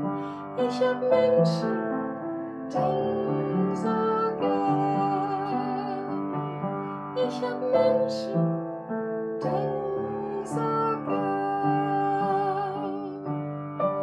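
A woman singing a German song with vibrato, accompanying herself on an upright piano; a few sharp hissing consonants stand out in the singing.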